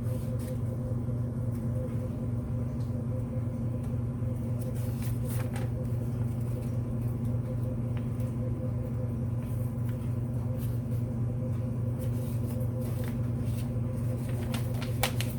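Steady low mechanical hum, level and unchanging, with a few faint clicks and rustles of paper or packaging being handled.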